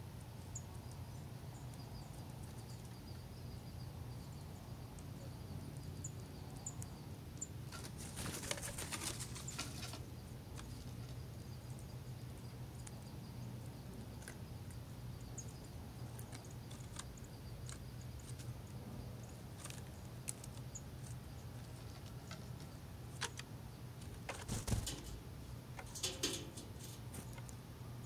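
A small bird's wings flapping as it comes and goes from a wooden barrel rim: a flurry about eight seconds in and two short ones near the end. Underneath is a steady low hum, with a few faint high chirps.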